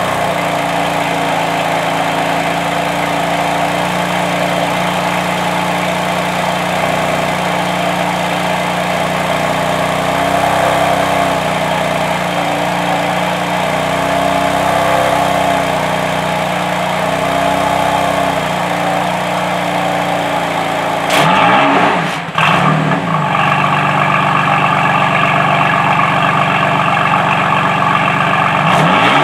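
BMW M4's twin-turbo straight-six idling steadily through its quad-tip exhaust, running cold with vapour coming from the tips. About two-thirds of the way in it is blipped once, pitch rising and falling, and then idles with a brighter tone; near the end comes another short blip.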